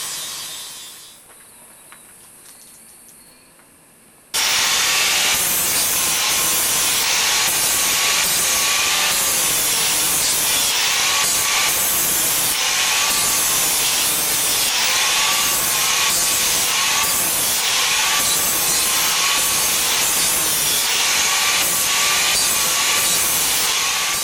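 An angle grinder polishing stainless steel sheet: a steady rasping hiss with a faint wavering whine. It dies away in the first second, and after a short lull it cuts back in abruptly about four seconds in and keeps going.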